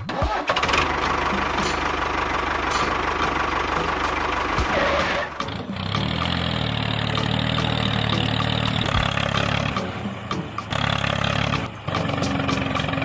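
Small motor running, in several cut-together segments that change abruptly about five and a half, ten and a half and twelve seconds in; the later segments carry a steady hum.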